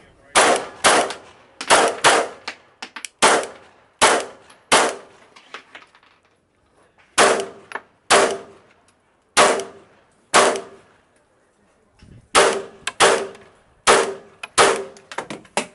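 Semi-automatic pistol fired in quick pairs and short strings, about eighteen shots, each sharp report with a short ringing tail, with breaks of a second or two between strings.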